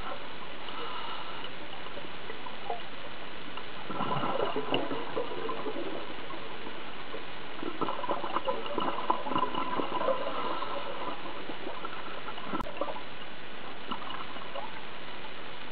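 Scuba regulator exhaust bubbles heard underwater: two bubbling, gurgling exhalations, about four seconds in and again about eight seconds in, over a steady hiss, with one sharp click near the end.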